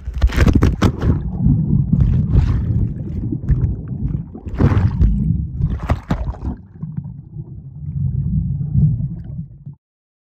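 Water splashing and sloshing around a paddleboard, with a few louder splashes roughly every two seconds over a loud, steady low rumble of wind on the microphone. The sound cuts off abruptly near the end.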